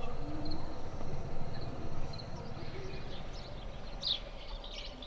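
Small birds chirping in the morning: short, quick, falling chirps that grow busier from about four seconds in. Under them, a low rumbling hum fades away over the first half.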